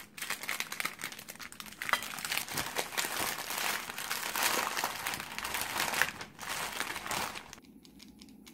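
Clear plastic zipper bag and parchment paper crinkling and rustling as hands slide a paper-wrapped sandwich half into the bag. The rustling stops about seven and a half seconds in, leaving only a few faint light ticks.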